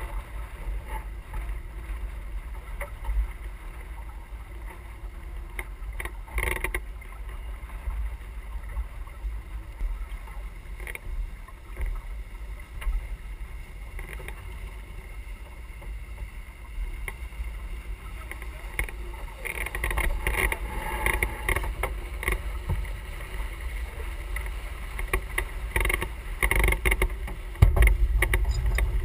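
Sailing yacht under way: water rushing and splashing along the hull with a low rumble of wind on the microphone, the wash growing louder for several seconds about two-thirds of the way in, and one loud knock near the end.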